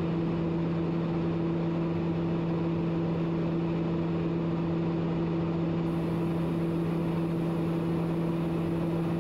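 Cabin drone of a TBM 900 turboprop at high-altitude cruise: the Pratt & Whitney PT6A-66D engine and propeller running steadily, a low hum and a second, higher hum over an even rush of air.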